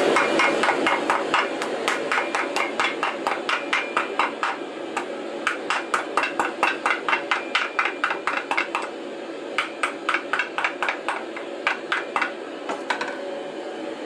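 Hammer blows on steel at the anvil in a quick, even rhythm of about four or five strikes a second. They come in several bouts with short pauses, and some strikes ring briefly. A steady hiss under them fades in the first seconds.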